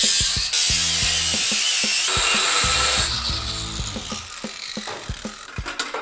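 Cordless angle grinder cutting through steel exhaust header tubes, a loud grinding hiss that stops about three seconds in. After that come light knocks and clicks as the cut header pieces are handled.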